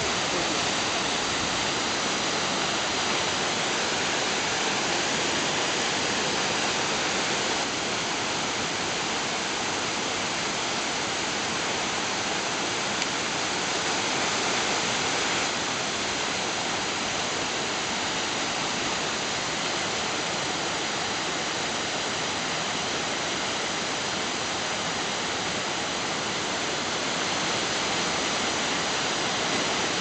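Waterfall and the rocky stream below it, a steady, unbroken rushing of falling and tumbling water.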